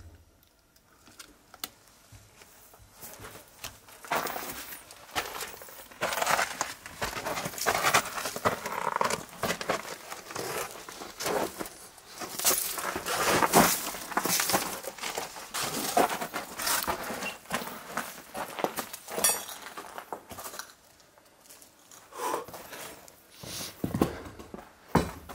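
Irregular crunching and rustling of someone moving on foot over loose rubble, with clothing rubbing close to the microphone.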